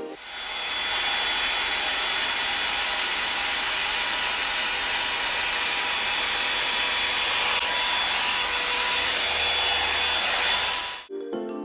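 Revlon One Step hot-air brush dryer running steadily, a loud even rush of air with a faint motor whine, cutting off suddenly near the end.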